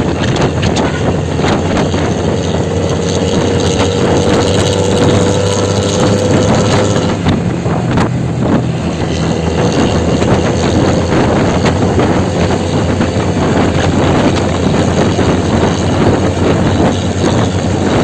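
Nissan engine running steadily through a loud aftermarket exhaust, a powerful, tinny snore, with wind buffeting the microphone.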